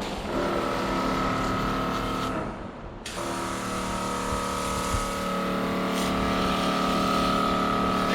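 Portable canister pressure washer running, its pump motor whining steadily under the hiss of the water jet. The spray and whine cut out for under a second about two and a half seconds in, then start again.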